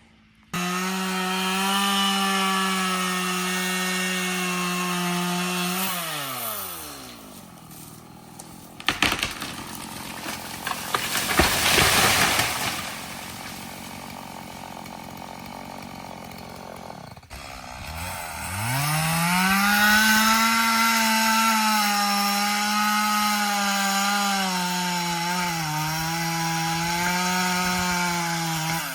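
Two-stroke chainsaw running at full throttle, then dropping back to idle. A loud rushing, crackling noise follows, then the saw revs up again and runs at high speed, its pitch dipping slightly now and then as it cuts into a tree.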